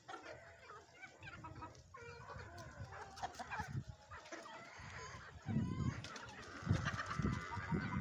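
A flock of aseel chickens clucking and calling, many short calls overlapping, with one longer held call near the end. Low thumps come in during the second half.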